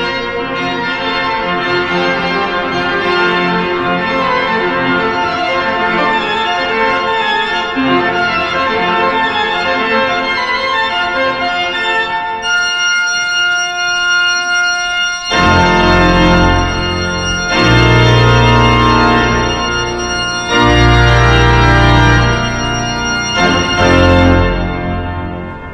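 Salisbury Cathedral's Father Willis pipe organ playing. First comes a moving passage of many-note chords, then a single high chord is held for a few seconds. From about halfway, loud, deep full chords with heavy pedal bass sound in long held blocks a few seconds apart, stopping near the end.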